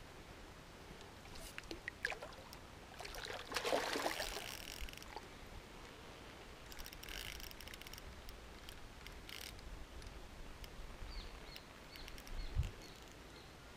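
Fishing rod and reel handling noises while a common carp is played on the line: scattered clicks and ticks, a louder rushing, splashy burst about four seconds in, and a dull thump near the end.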